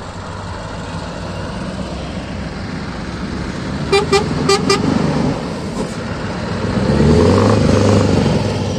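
Scania truck engines running through open exhausts, with three short horn toots about four seconds in. Near the end a Scania V8 revs up and grows louder as it pulls past close by.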